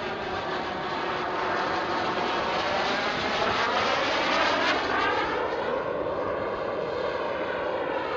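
Skymaster Hawk RC model jet's small turbine engine whining as it flies past; the sound swells to its loudest about four to five seconds in, then its pitch drops as it moves away.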